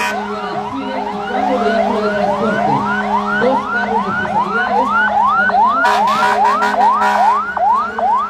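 Fire engine sirens sounding together: one in a fast yelp, rising about three times a second, over a slower wail that falls away over the first couple of seconds and sweeps again later, with a steady low hum underneath.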